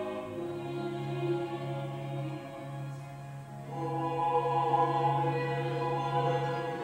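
Slow music with long held notes, sung by choir-like voices over a sustained low note; higher voices come in about halfway and swell.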